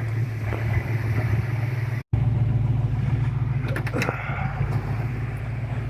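1965 Ford Mustang's 289 V8 idling steadily, with a brief gap in the sound about two seconds in.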